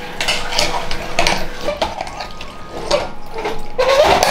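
A metal spoon stirring chunks of raw chicken and potato in a metal pressure cooker pot, with repeated scraping and clanking against the pot's sides.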